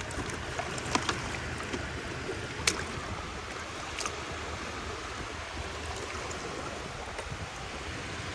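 Steady sloshing and trickling of water, with a few light clicks about one, two and a half, and four seconds in.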